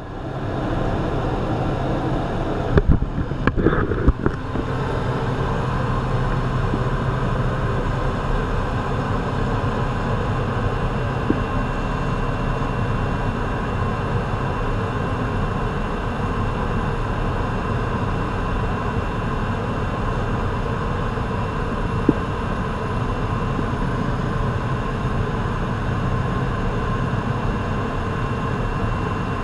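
Steady drone of a jump plane's engine heard from inside the cabin during the climb, with a few sharp knocks and rustles about three to four seconds in.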